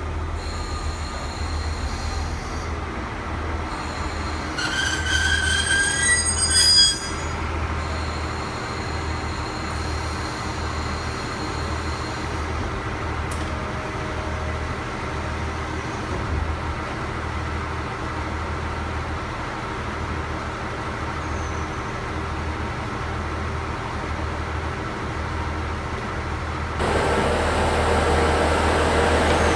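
KiHa 40 series diesel railcar drawing to a halt: its wheels and brakes squeal in slightly rising tones about five seconds in and end with a short clunk as it stops, then its diesel engine idles with a steady low rumble.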